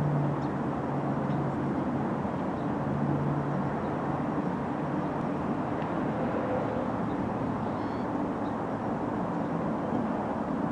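Diesel locomotive leading a grain train as it approaches, its engine a steady low drone.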